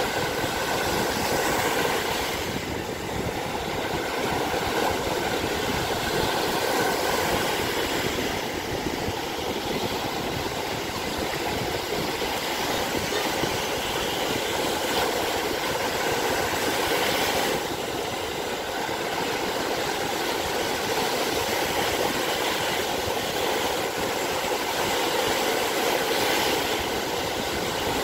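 Small lake waves breaking and washing up onto a sandy beach: a steady rush of surf that swells and eases slightly.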